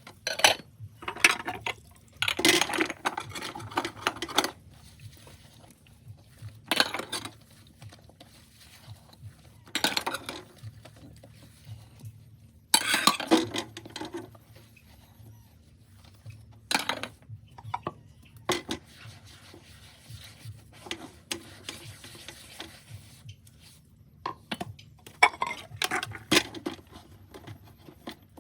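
Plates and cutlery clinking and clattering against each other in a sink while dishes are washed by hand, in irregular bursts every second or two with quieter stretches between.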